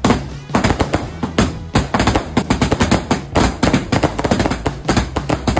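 Fireworks and firecrackers going off in a rapid, continuous string of sharp bangs and crackles.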